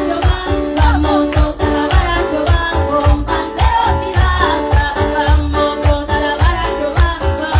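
Amplified live gospel chorus: a woman singing into a microphone over electronic keyboard chords and a steady, fast bass beat.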